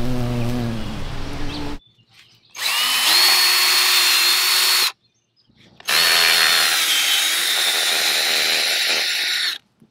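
A small high-speed power tool motor running in two separate spells of a few seconds each, with a high whine that rises as it spins up; each spell cuts off abruptly. Before them, a low steady buzz stops a little under two seconds in.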